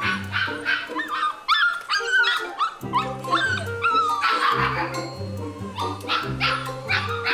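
Siberian husky puppy crying while being bathed: repeated high-pitched whines and yelps that slide up and down in pitch, with one harsher cry about four and a half seconds in, over background music.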